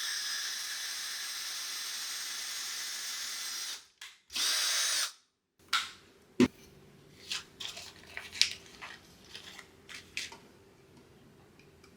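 Power drill boring a pilot hole for a doorbell mounting-bracket screw: a steady run of about four seconds, then a short second burst. After that come a sharp knock and scattered light clicks as the drill and bracket are handled.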